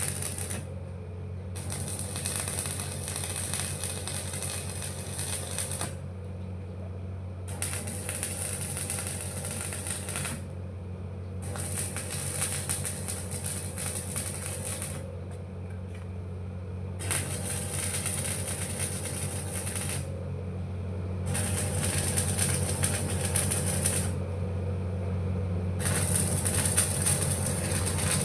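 Electric arc welding: crackling in runs of a few seconds, broken by short pauses, over a steady low hum.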